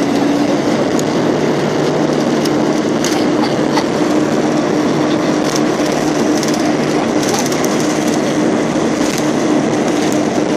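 Airliner cabin noise with the engines running: a loud, steady rush with a constant low drone, and scattered light clicks and rattles throughout.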